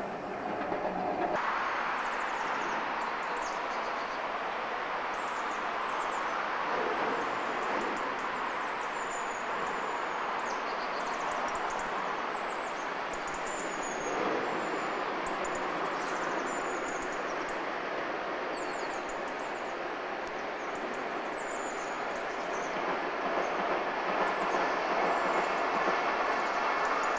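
A convoy of four coupled SBB Re 460 electric locomotives running light, heard as a steady rushing train noise that changes little as they move along.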